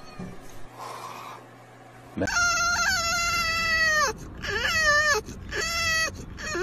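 A French bulldog whining in a string of high, drawn-out cries. The first lasts about two seconds and starts abruptly; shorter cries that bend up and down in pitch follow.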